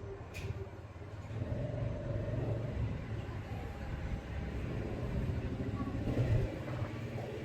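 Wind buffeting the microphone: a fluctuating low rumble that grows louder about a second and a half in, with a single sharp click near the start.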